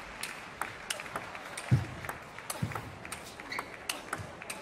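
Table tennis rally: the ball clicking sharply off rackets and the table again and again. Two heavy thuds come about two seconds in, one after the other.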